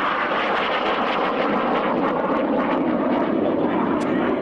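BAe Hawk jet trainer's turbofan engine noise as it flies past, the sound deepening toward the end before cutting off suddenly.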